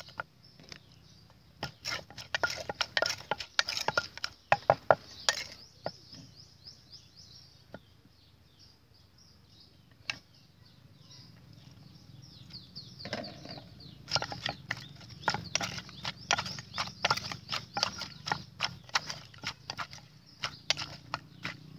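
Wooden pestle pounding and a metal spoon scraping in a clay mortar, a fast run of dull knocks. The knocking stops for several seconds in the middle, then comes back and keeps going to the end.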